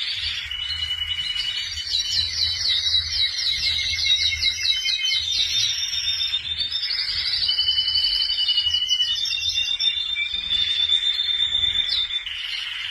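Domestic canary singing: fast rolling trills of quickly repeated notes, alternating with long held whistled notes.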